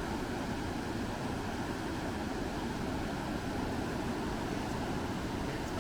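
Steady rush of water pouring over a river dam, an even noise with no breaks or changes.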